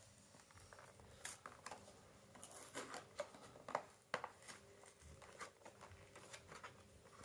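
Faint, scattered clicks and crinkles of a clear plastic toy box being handled and pried at while a child struggles to open it.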